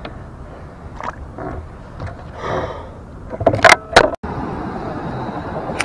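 A bass released over the side of a kayak, hitting the water with two loud, sharp splashes in quick succession about three and a half seconds in. The sound then breaks off abruptly and a steady rushing noise follows.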